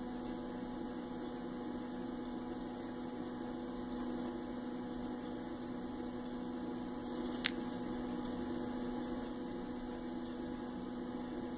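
Steady electrical mains hum with one short click about seven and a half seconds in.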